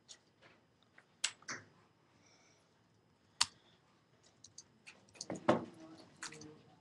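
Scattered sharp clicks and taps, with two distinct loud clicks about a second and a quarter and three and a half seconds in, and a busier run of clicks and clatter near the end.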